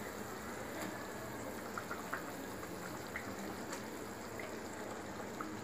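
Kalia gravy boiling in a metal kadai on a high gas flame: a steady bubbling with small scattered pops.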